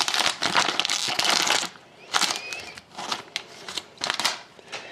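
Hockey card pack wrapper crinkling as packs are opened and cards handled: a dense spell of crackling for the first second and a half, then softer scattered crinkles and clicks.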